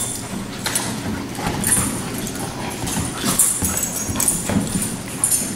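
Two large dogs play-wrestling on a hard floor: claws clicking and scrabbling in an irregular patter, with short dog vocal sounds mixed in.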